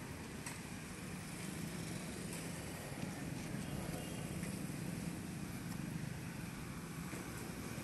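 Steady low hum of a motor vehicle engine, a little stronger in the middle seconds, with a few faint clicks.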